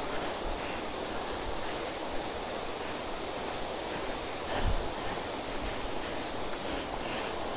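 Russell Falls' water rushing as a steady, even noise through the trees. A brief low bump sounds about halfway through.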